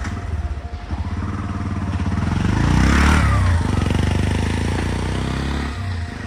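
A motor vehicle driving past on a wet road: its engine and tyre noise build to a peak about three seconds in, the engine note dropping as it goes by, then fade.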